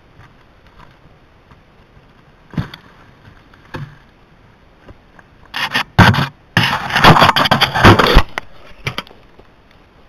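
A few footsteps in dry leaf litter, then loud scraping and clicking as a hand handles the game camera right at its microphone, for about three seconds from just past halfway.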